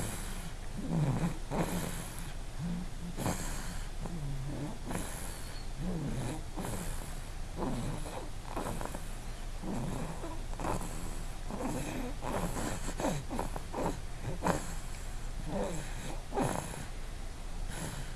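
Snoring: a run of snores, coming about once a second with an irregular rhythm, sometimes in quick clusters.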